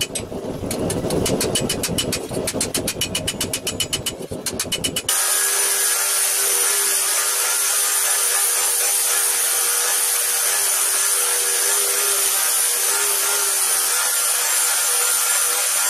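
Rapid light hammer taps, several a second, on the steel knuckle plate of a gauntlet over a stake. About five seconds in this cuts to a belt grinder running steadily, its abrasive belt grinding the edge of the steel plate with a steady hum under the grinding noise.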